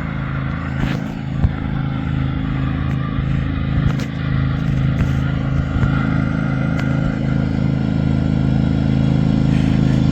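Riding lawn mower engine running steadily and growing louder as it approaches, with a few light clatters.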